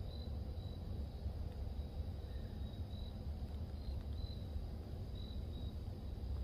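Crickets trilling steadily in a high-pitched night chorus, over a constant low rumble.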